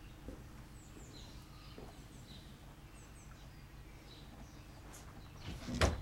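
Small birds chirping faintly, then near the end a loud, single hollow thud of a horse's hoof landing on the horse trailer's ramp as it steps in.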